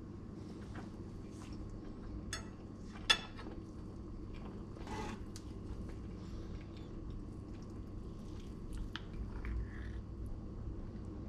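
Light clinks and scrapes of cutlery against dishes, with one sharp click about three seconds in as the loudest sound, over a steady low hum.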